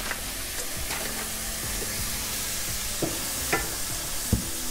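Chopped celery, carrots and onion sautéing in butter in a pan, a steady sizzle. In the last two seconds come three light knocks as a glass mixing bowl is tipped and tapped to empty the dough.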